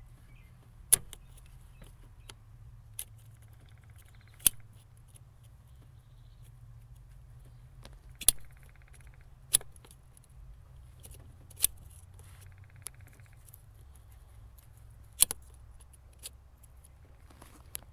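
Hand tools and metal parts being handled on a car engine: sharp metallic clicks every second or two, with three short runs of fast, even clicking.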